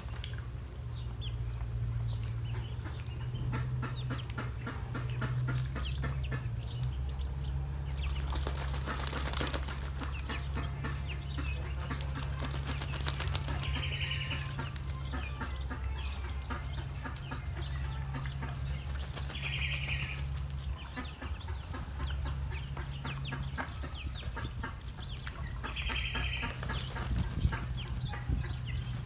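Muscovy ducks at a shallow basin of water: ducklings splashing and paddling, with bursts of wing-flapping from the adult duck. A steady low hum runs underneath, and a short high call comes three times, about six seconds apart.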